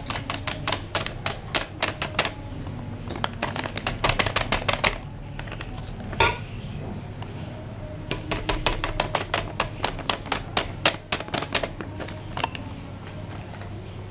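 Plastic sachets of agar-agar powder being tapped and shaken to empty them into a steel pot: bursts of rapid, even clicks, with a short rasp about six seconds in.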